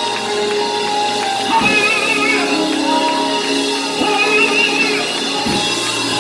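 Live church praise music: singing with vibrato over long sustained keyboard chords, with a low drum hit about one and a half seconds in and another near the end.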